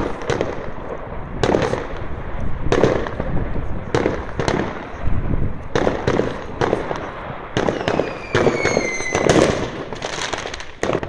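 Many New Year's fireworks going off in a rapid string of bangs, about one or two a second. About eight seconds in, a whistling firework sounds, falling in pitch for about a second and a half.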